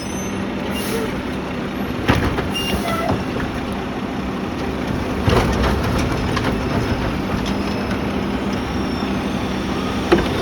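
Garbage truck engine running steadily, with a few sharp knocks about two, five and ten seconds in.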